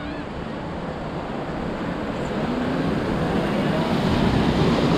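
Sea waves breaking and surf washing against a wooden jetty, the rush of water building through the second half.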